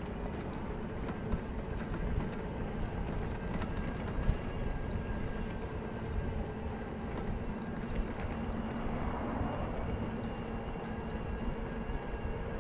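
Bicycle riding along a paved trail: a steady rolling hum from the tyres, with rapid light ticking throughout.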